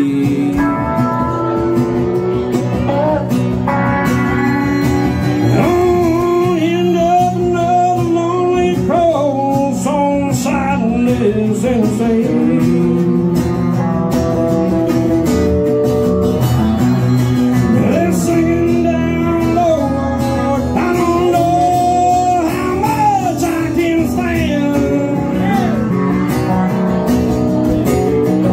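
Live country music: a pedal steel guitar plays long, sliding notes over a strummed acoustic guitar.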